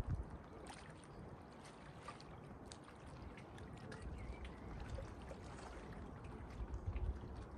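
Outdoor ambience of lapping water, with a low rumble of wind on the microphone that swells in gusts.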